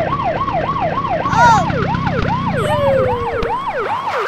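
Police siren sound effect cycling up and down in pitch, rapid at first, then slowing to a slower rise-and-drop of about two or three sweeps a second.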